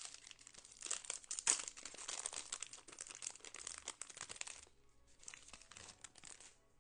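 Wrapper of a Topps Composite football card pack crinkling as it is torn open and the cards are slid out. The dense crackling dies down about two-thirds of the way through, leaving softer rustling.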